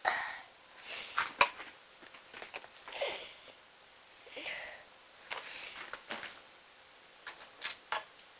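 A person sniffing repeatedly close to the microphone, about half a dozen short breathy sniffs, with a few sharp clicks in between.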